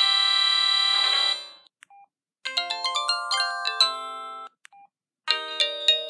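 Samsung SGH-X497 mobile phone's built-in SMS alert melodies playing through its small speaker. A held synthesized chord fades out over about a second and a half, then a short beep and a quick two-second run of synthesized notes. Another beep follows, and a new run of lower notes starts near the end.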